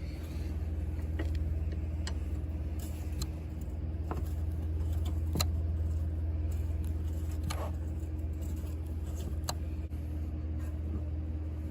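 Single-cylinder ATV engine idling steadily as a low hum, with a few light clicks and taps over it.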